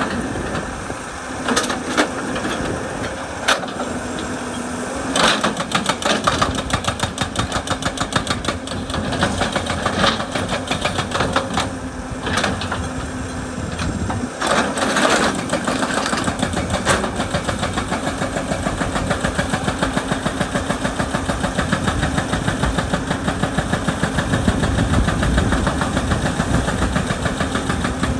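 Excavator's hydraulic breaker hammering rock in bursts of rapid, even blows, over the steady running of the excavator's engine.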